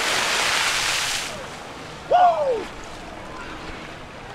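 Splash of several jumpers plunging into river water after a cliff jump, the spray rushing and falling back, dying away about a second in. About two seconds in, a short shout rising and falling in pitch.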